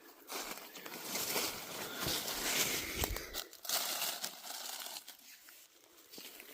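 Dry forest leaves crackling and rustling as they are disturbed, for about five seconds, then dying down.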